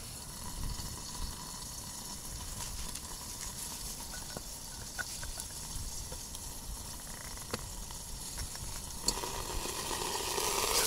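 Fray Bentos mince beef and onion pie sizzling in its tin inside a lidded stainless steel billy can over a campfire, a steady hiss with small scattered crackles. About nine seconds in there is a click and the sizzle grows louder as the lid is lifted and steam pours out.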